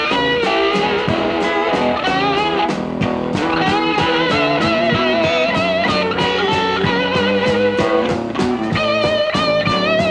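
Electric blues guitar instrumental break, with notes that bend and waver over a steady drum beat.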